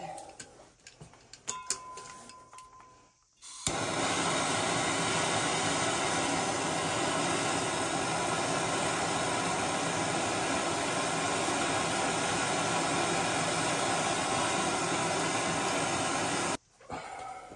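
Gas plumbing torch burning with a steady hiss as its blue flame heats a copper pipe fitting. The hiss starts suddenly a few seconds in and stops abruptly near the end.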